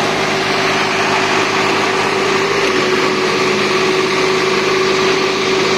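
Tractor diesel engine running hard and steady under load while its rear tyre spins and slips on the road.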